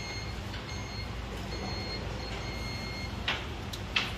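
A high-pitched electronic beep tone that sounds on and off in short stretches, over a steady low hum. Two sharp clicks come about three seconds in and near the end.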